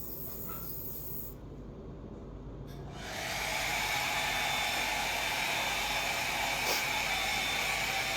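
Saline nasal wash spray hissing steadily into the nose, starting about three seconds in.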